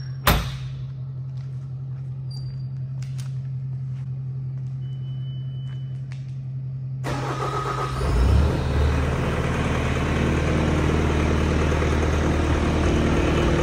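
Bobcat T595 compact track loader with the key on: a sharp click and a short beep, then about eight seconds in its diesel engine cranks, catches and settles into a steady idle.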